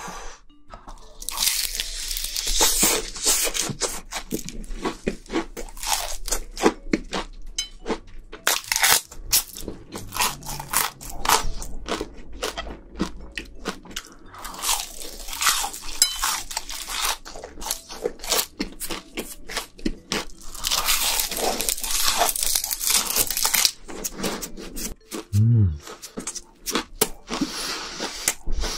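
Close-miked crunching and chewing of deep-fried breaded shrimp: dense, irregular crackles of the crisp fried crust with each bite and chew.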